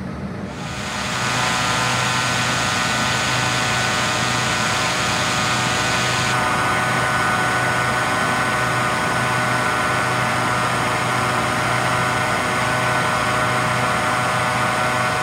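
Gas-powered positive-pressure ventilation fan running at full throttle: a loud, steady engine drone with a strong rush of air. It swells up about a second in and then holds steady.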